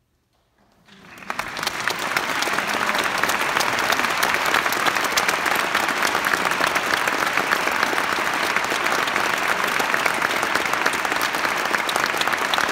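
Near silence after the last note of the solo piano piece, then the audience starts applauding about a second in, quickly building to steady, dense clapping.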